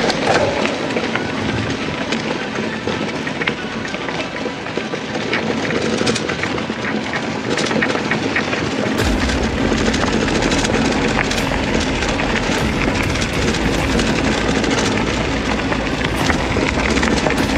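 Bicycle rolling over a rough trail: steady tyre and rushing-air noise with frequent rattles and knocks from the bike. A deeper low rumble sets in about halfway through.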